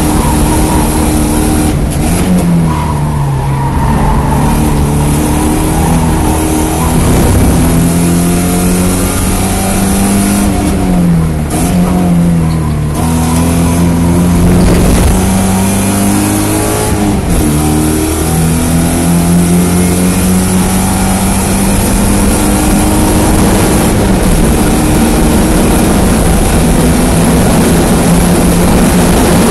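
1987 Porsche 924S's 2.5-litre four-cylinder engine at racing speed. Its pitch falls and climbs again three times, about two, eleven and seventeen seconds in, then holds steady while creeping slowly higher in the last ten seconds.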